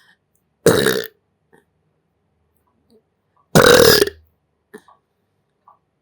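A person belching loudly twice, about three seconds apart; the second belch is a little longer.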